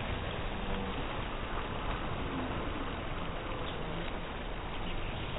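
Steady wash of small waves breaking on a shingle shore, mixed with wind noise.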